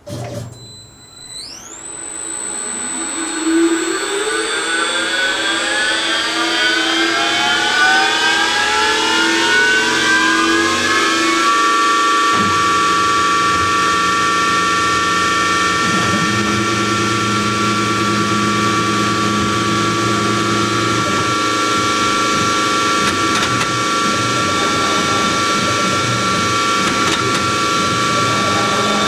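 Novakon NM200 CNC mill spindle starting up: a whine that climbs steadily in pitch for about eleven seconds, then holds at a steady speed. A lower hum joins about a second after it levels off.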